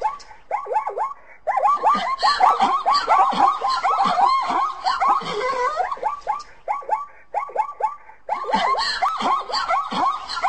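Zebra calling: quick series of pitched barking calls, several a second, in bouts with brief pauses about a second in and again near the three-quarter mark.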